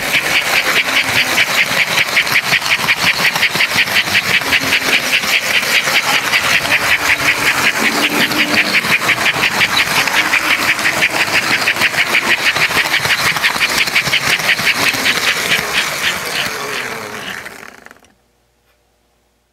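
American Flyer S-gauge model train, a Northern steam locomotive pulling circus cars, running on Flyer track and heard from a car riding in the train. It makes a fast, even clatter of about five beats a second that fades out near the end.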